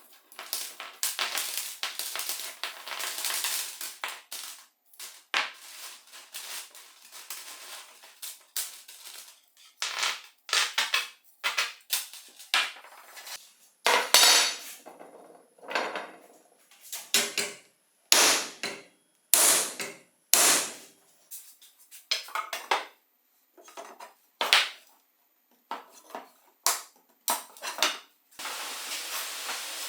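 Loose steel bicycle spokes clinking and scraping against each other and the wheel rim as they are taken out and handled, in irregular knocks and rattles. A steady hiss starts near the end.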